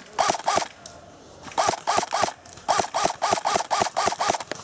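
Airsoft rifle firing rapid shots in four short strings, about six a second, each shot a sharp clack with a brief ring.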